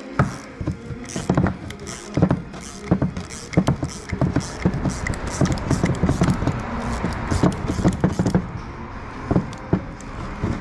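Ratchet and metal hand tools working the screws out of a turbocharger's wastegate actuator: a run of irregular sharp clicks and knocks.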